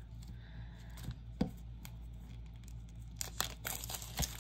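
Wrapping being torn and crinkled open on a new deck of oracle cards: a few sharp isolated crackles at first, then a busier run of crackling about three seconds in.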